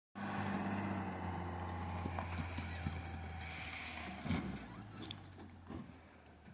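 A steady low engine hum that fades away over several seconds, with scattered light clicks and knocks.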